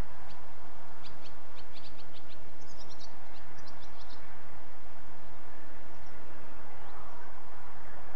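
Irish Rail diesel locomotive engine running with a low steady hum as a freight train approaches slowly. Small birds chirp in a quick flurry between about one and four seconds in.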